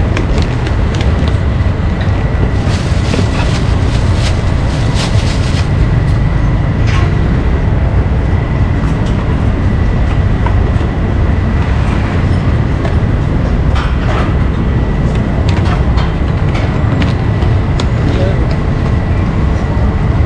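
Busy street ambience: a steady low traffic rumble under background chatter, with scattered clicks and knocks and a faint steady high tone.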